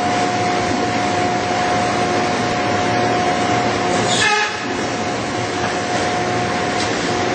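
Steel coil slitting line running: a steady mechanical rush from the rolls and the slit steel strip, with a thin steady whine. A brief swish comes a little past halfway.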